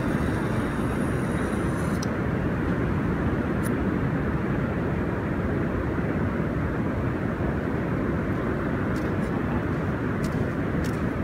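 Steady wind buffeting the microphone. For the first two seconds a high whirring hiss of fishing line running off the reel after the cast, which cuts off suddenly as the lead lands; a few faint clicks later on.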